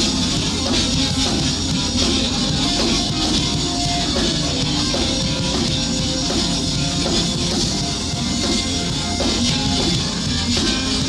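Rock band playing an instrumental passage between vocal lines: guitar and drum kit, loud and continuous with no singing.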